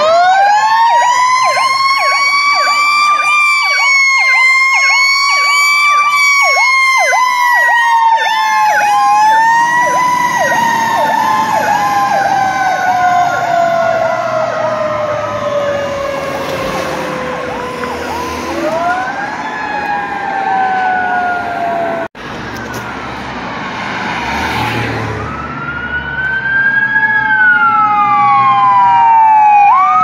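Fire truck sirens: a wailing siren sweeps slowly up and down in pitch, with a second siren's rapid yelp laid over it for the first nine seconds or so. The sound cuts briefly about two-thirds of the way through, then a siren winds up again near the end.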